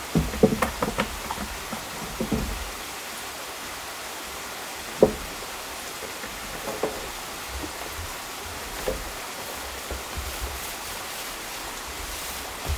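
A paint roller and plastic paint bucket knocking as the roller is loaded and worked over wooden deck boards: a cluster of small knocks in the first second or so, a sharper knock about five seconds in, and a few lighter ones after. A steady rush of a stream runs behind it.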